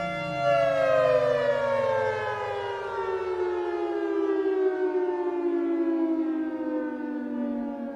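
Civil defense warning siren: a steady tone that, about half a second in, starts a long, slow fall in pitch as the siren winds down.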